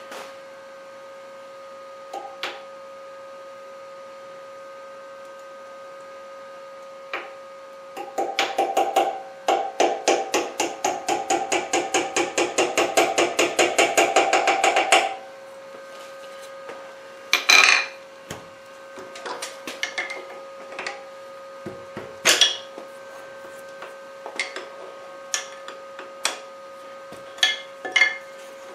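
Hammer and punch driving an eighth-inch steel roll pin through a gear and its shaft. A quick run of light taps over several seconds grows louder, then a few single, sharper blows follow, seating the pin so the gear is fixed on the shaft.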